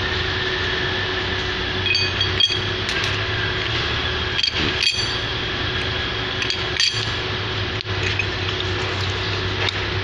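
Steel and brass parts of a Kawasaki NV270 hydraulic main pump clinking and ringing as they are handled and fitted together: the cylinder block, retainer plate and spherical bush. There are about half a dozen sharp metal clinks, some with a brief ring, over a steady background hum.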